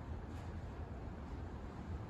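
Mistral MCFA48 ceiling fan running, a steady rush of moving air with a fluctuating low rumble as the draught buffets the microphone.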